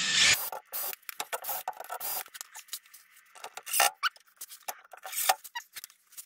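A cordless drill runs briefly at the start, drilling a pilot hole into the door panel, followed by a string of short clicks, taps and scrapes of parts being handled.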